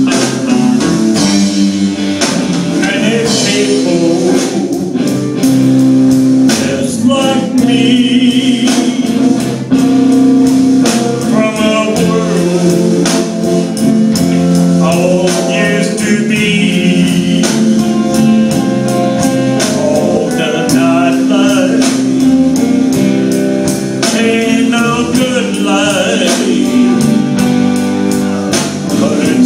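Live band playing: electric guitars and a drum kit keeping a steady beat, with a man singing.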